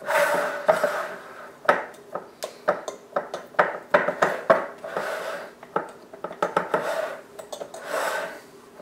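Metal fork pressing cookie dough into a metal cupcake tin, with repeated clicks and scrapes of the tines against the pan.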